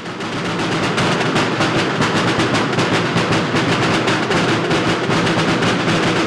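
A group of rope-tensioned drums beaten with sticks in a rapid, even drum roll, fading in over the first second and then holding steady and loud.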